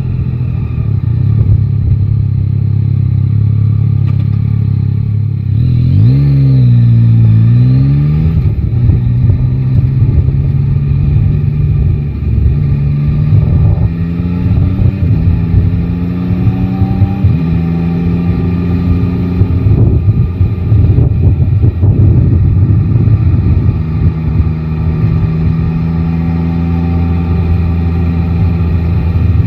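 Yamaha Tracer 9 GT's inline-three engine under way. The revs dip and rise again about six seconds in, then the bike accelerates up through several gears, the pitch climbing and dropping back at each shift, before settling into a steady cruise in the last few seconds.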